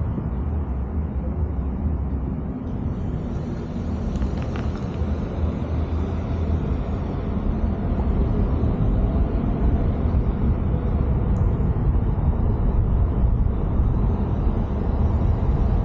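Car driving along a city street: a steady low rumble of engine and road noise, growing a little louder about halfway through.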